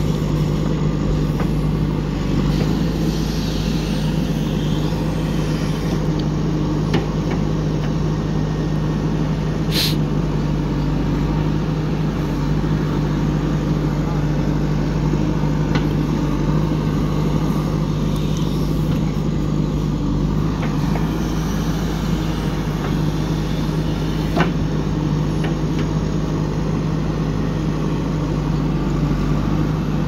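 JCB 3DX backhoe loader's diesel engine running steadily under load while the backhoe digs and swings. A couple of short, sharp clanks from the working arm and bucket stand out, one about ten seconds in and one near 24 seconds.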